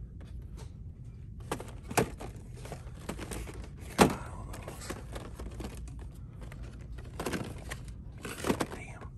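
Boxed action figures with plastic windows being flipped through on store peg hooks: the packaging crinkles and knocks, with several sharp clacks, the loudest about four seconds in.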